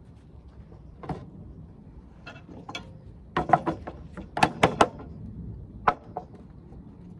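Sharp taps and knocks of hand tools on lead sheet and a wooden bench: single knocks, then two quick clusters in the middle, the loudest near the middle.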